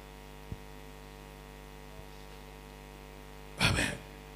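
Steady electrical mains hum from the microphone and amplification system, with a faint click or two. Near the end, one short loud vocal burst from the preacher straight into the handheld microphone.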